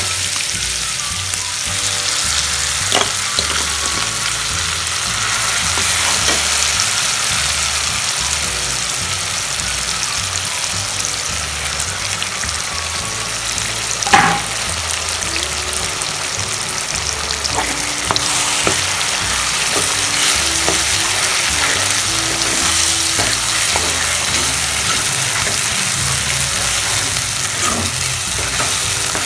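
Coarsely ground red chilli paste frying in hot oil, a steady sizzle, while a steel spoon stirs and scrapes it around the pan with small clicks and one louder knock about halfway through.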